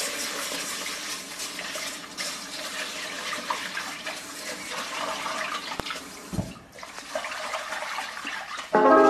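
Kitchen tap running into the sink as dishes are rinsed, a steady rush of water with a couple of light knocks partway through; the flow eases off about two thirds of the way in. Music comes in near the end.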